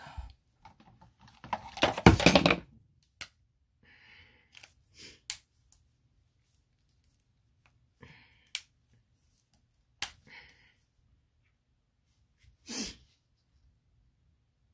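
Handling of painting supplies on a work table: several sharp clicks and taps and short soft rustles, with one loud rushing burst about two seconds in.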